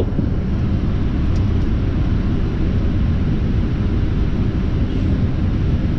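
Boeing 747-400 flight-deck noise on final approach: a steady rush of airflow and engine noise.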